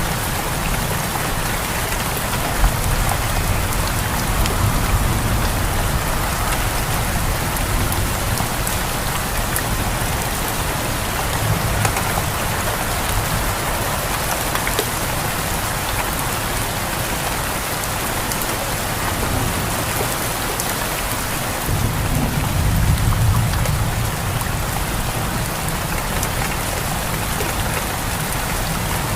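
Steady heavy rain falling and pattering on surfaces, with low rumbles of distant thunder swelling a few times, most strongly about three quarters of the way through.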